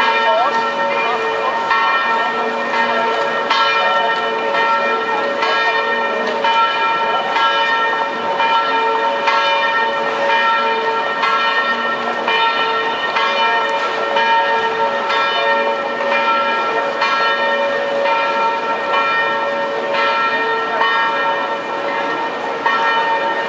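Several pitched bells ringing in a continuous peal, struck again and again with overlapping, lingering tones, over a faint murmur of voices.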